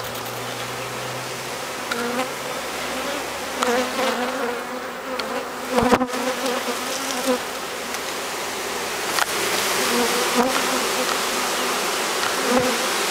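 Honeybee swarm buzzing: a dense hum of many bees, with single bees flying close past, their buzz rising and falling in pitch. A few short knocks, the loudest about six seconds in.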